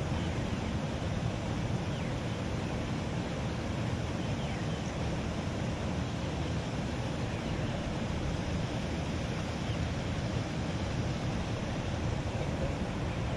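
Steady rushing noise of water pouring from a drainage outlet into the ditch, mixed with wind on the microphone.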